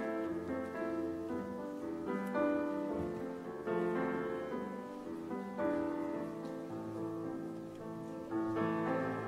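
Instrumental keyboard music with no singing: a slow melody over held chords.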